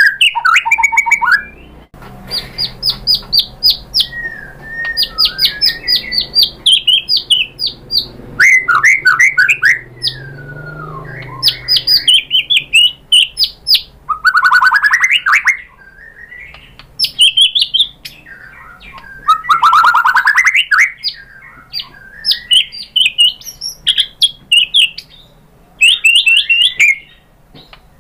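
White-rumped shama (murai batu) in loud, excited full song: phrase after phrase of rapidly repeated notes, fast trills and rising and falling whistles, with short pauses between phrases.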